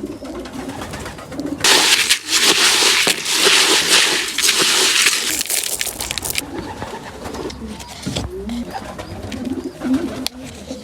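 Pigeons cooing throughout. From about two seconds in, a loud rushing noise covers them for some four seconds.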